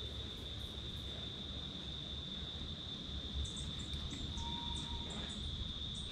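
An insect trilling steadily at one high pitch over a low background rumble, with a few faint high chirps around the middle.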